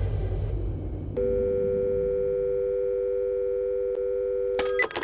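Telephone dial tone: a steady two-note hum that starts about a second in, after a low electronic drone fades out. It breaks off near the end into a few quick electronic clicks and beeps.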